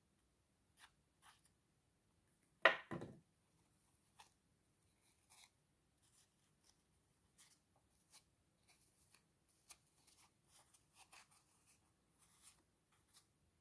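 Quiet handling noises of crafting work on a table: scattered faint clicks and light rustles of paper and fabric, with one louder clatter about three seconds in.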